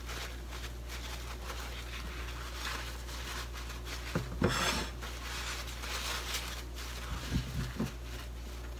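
Soft rustling and rubbing of a paper towel as strawberries are wiped dry by hand, with a couple of brief louder rustles near the middle and again near the end.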